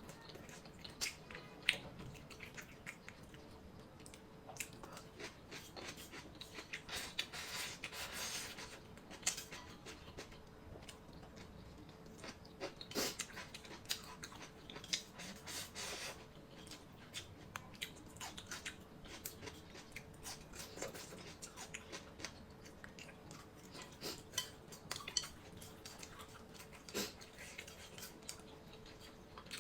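Close-miked chewing and mouth sounds of someone eating, with many short wet smacks and crunchy clicks scattered throughout and a faint steady hum underneath.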